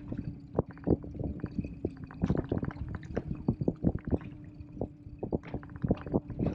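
Choppy sea water slapping and knocking irregularly against the hull of a small inflatable boat.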